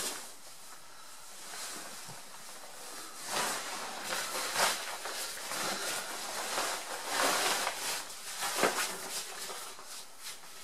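Rustling and swishing of a British Army Gore-Tex bivvy bag's waterproof fabric as a person wriggles into it and pulls it up over the body, in irregular swishes of varying loudness.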